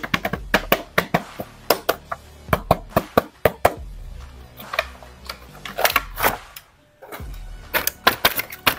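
Cardboard toy box and clear plastic bag being handled as an action figure is unboxed: irregular clicks, taps and crinkles, over background music. The sound drops out briefly just before seven seconds in.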